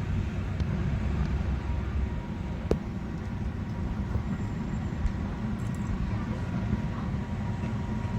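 Container freight train hauled by an E494 electric locomotive running past, a steady low rumble with a faint steady whine above it and a single sharp click a little under three seconds in.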